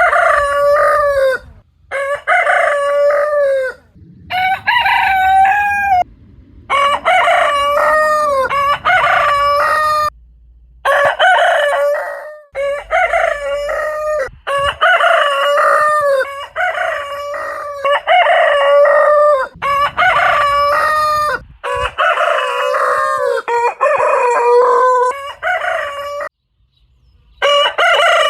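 Roosters crowing one after another, about a dozen crows each lasting one to two seconds. Abrupt cuts separate many of the crows, as between separate recordings.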